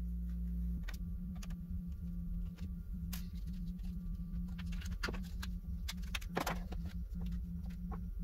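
Scattered light clicks and taps of a screwdriver, screws and small parts on a laptop's metal bottom chassis during disassembly, with a few sharper clicks in the second half. A steady low hum runs underneath.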